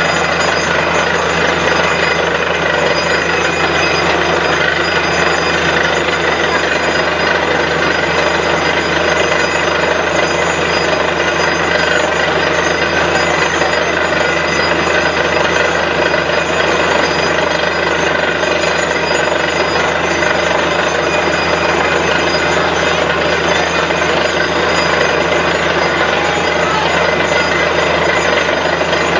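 Truck-mounted borewell drilling rig running steadily while drilling a water well, a loud continuous mechanical din of engine and drill with no let-up.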